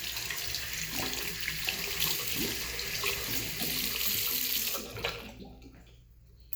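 Faucet running into a bathroom sink while hands are washed under the stream; the water is shut off about five seconds in.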